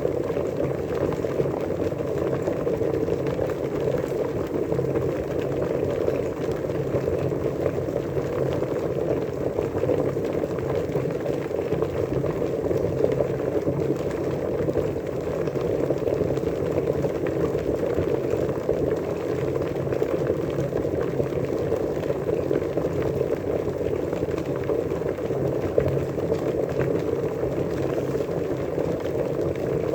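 Water at a steady rolling boil, a continuous dense bubbling and gurgling that stays even throughout.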